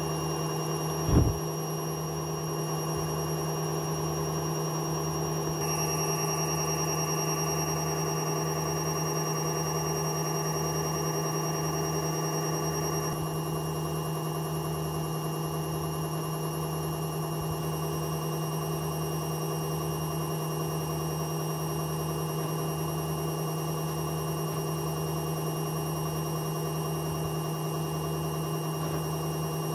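VON front-loading washing machine running with a steady mechanical drone and a low rumble that pulses about once a second, the noise of its worn-out drum bearings. A single sharp knock sounds about a second in.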